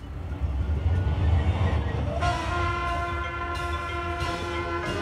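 Marching band: a low rumble for about two seconds, then the brass section comes in on a loud, sustained chord that is held steady.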